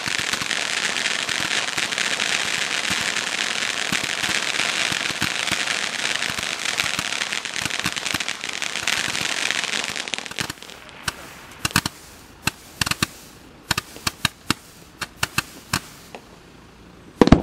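Mad Ox Stampede roman candle firing: a dense, continuous crackling hiss for about ten seconds as stars shoot up, then scattered sharp pops and cracks. It ends with one loud bang and cuts off suddenly.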